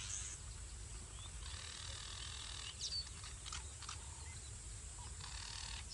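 A few short bird chirps over a steady high hiss and low rumble.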